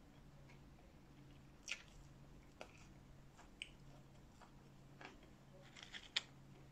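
Close-miked mouth sounds of eating french fries: faint wet smacks and chewing clicks about once a second, with a sharper click near the end.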